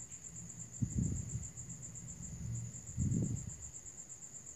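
A faint, steady high-pitched trill, rapidly pulsing, runs throughout, with two soft low rustles about a second in and just after three seconds.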